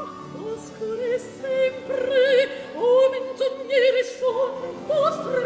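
Baroque opera music: voices singing with a wide vibrato over a small orchestra.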